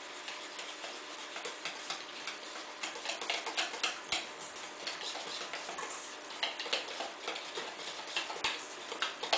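A whisk beating eggs and icing sugar in a metal bowl, its wires clicking and scraping against the bowl in a quick, uneven patter.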